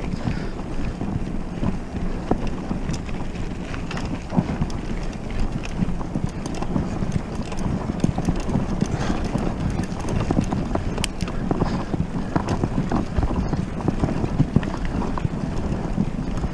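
Wind buffeting the microphone over the steady rumble of a mountain bike riding a rough track, with frequent small knocks and rattles.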